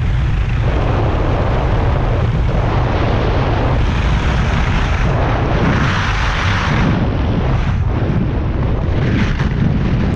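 Wind buffeting the microphone of a skier racing downhill at speed, a steady low rumble, with the hiss of Stöckli skis carving on groomed snow swelling about four and six seconds in.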